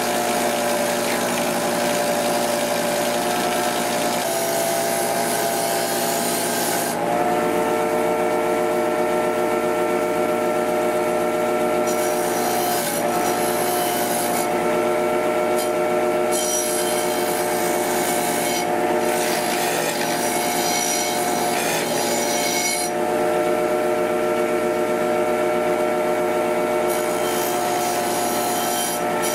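Kmart bench grinder running steadily, with a rusty steel bayonet pressed against its spinning wheel. A rough grinding hiss rises whenever the steel bears on the wheel and eases when it lifts off, which happens several times as the rust is worked off.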